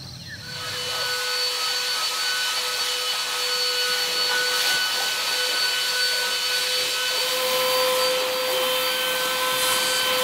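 Handheld cordless vacuum cleaner with a flat crevice nozzle, vacuuming a tent's fabric floor. It starts about half a second in and runs steadily: a motor whine over a hiss of rushing air.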